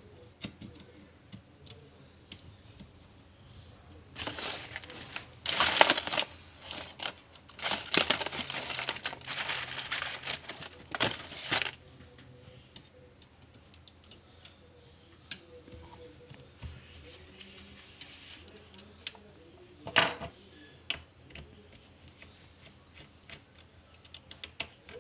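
Plastic clicking and scraping as a Dell Inspiron 3558 laptop's keyboard is pried and lifted out of its palmrest. The clatter is loudest from about four to twelve seconds in, with scattered light clicks either side and one sharp click near the end.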